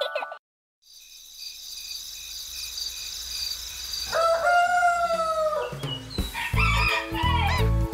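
A rooster crows once, one held call of about a second and a half, over a faint steady high trill. About six seconds in, a bright children's jingle with a heavy bass beat and quick bird tweets starts.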